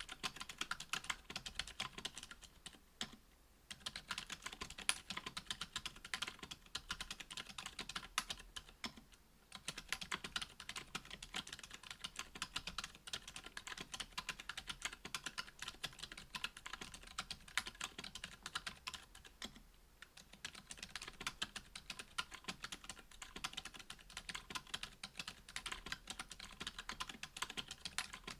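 Fast, continuous typing on a Duck Orion V2.5 mechanical keyboard with stock, unlubricated Gazzew U4 Boba 62g silent tactile switches in an FR-4 plate, under GMK keycaps. The key presses form a quick patter with brief pauses about three, nine and twenty seconds in.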